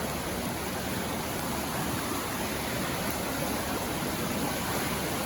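River in flood, swollen high over its banks and rocks, rushing past in a steady, unbroken wash of water noise.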